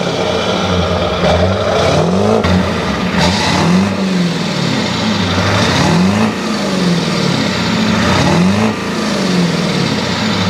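2002 Chevy Silverado 2500 HD's 6.6-litre Duramax turbo-diesel V8, heard at the tailpipe through its stock exhaust, revved hard again and again, its note rising and dropping back each time. It reads about 92 dB at the tailpipe.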